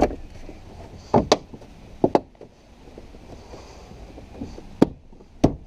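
Plastic door-trim clips being pressed and snapped into their holes in a car door: several sharp knocks, a close pair about two seconds in and more near the end.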